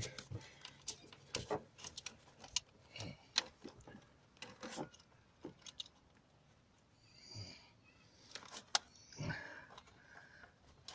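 Scattered small clicks and knocks of hands working on parts in a car's engine bay, trying to free a stuck hose, with a few faint breaths of effort.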